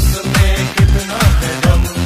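Electronic dance music from a Hindi song mashup, with a deep kick drum about two and a half times a second, each hit dropping in pitch.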